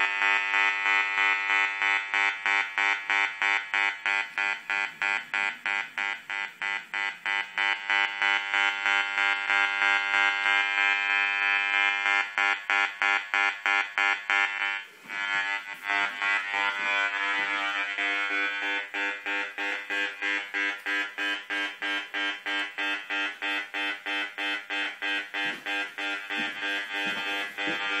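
An RF detector's speaker buzzes loudly in regular pulses, two or three times a second, as it picks up the pulsed DECT microwave transmissions of a digital baby monitor's base unit about 2.5 to 3 metres away. The buzz drops out briefly about halfway.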